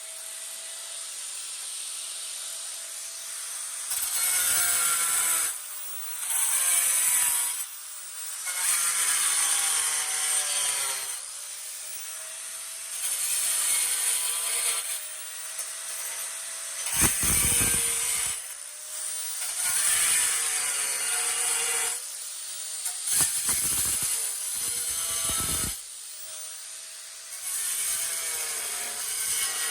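Angle grinder running and cutting into floor tile in a series of short passes, each pass a harsh grinding burst lasting a second or two. The motor's whine sags under each cut and recovers between them.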